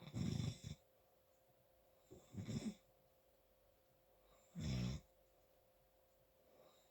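A person snoring: three short snores about two seconds apart, each lasting about half a second.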